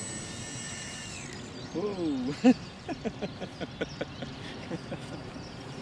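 A model helicopter's steady high motor and rotor whine winds off a little over a second in, after the landing. Then come a short gliding, voice-like sound and a run of sharp clicks, about three or four a second, the loudest a little after two seconds in.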